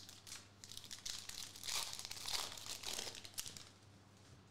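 Foil trading-card pack wrapper crinkling for a couple of seconds as it is torn open and the cards are pulled out.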